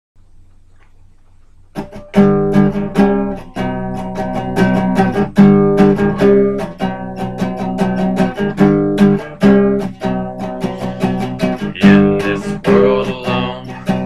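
Acoustic guitar playing an instrumental intro: chords picked and strummed in a steady rhythm, starting a little under two seconds in after a faint low hum.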